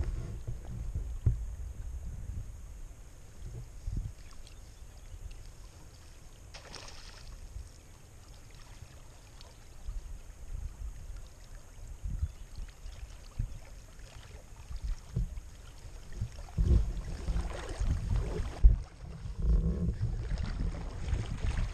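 Water lapping and swishing around a wader standing in a river, with wind gusting on the microphone as a low, uneven rumble. It grows busier in the last few seconds.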